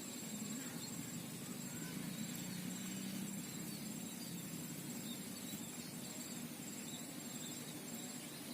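An insect trilling high-pitched in short repeated bursts, over a low steady background hum.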